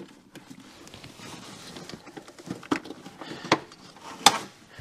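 Hands working the wiring connector of a car's ignition module: light rustling and handling noise, with three sharp plastic clicks, the last the loudest.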